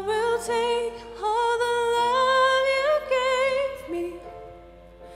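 A woman sings a slow ballad live, holding long notes with vibrato over soft instrumental accompaniment. The sung phrase ends about four seconds in, and the accompaniment carries on more quietly.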